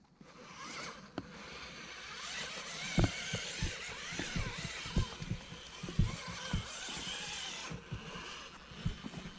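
Axial Capra RC rock crawler's electric motor and geared drivetrain whining as it crawls over rocks, its pitch rising and falling with the throttle and cutting off suddenly near the end. Scattered low thumps run through the middle.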